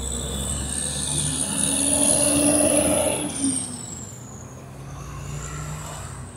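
Road traffic led by a heavy dump truck passing close by: its engine and tyres grow louder to a peak about two and a half seconds in, then fade as the pitch drops, with other cars and pickups running along the road.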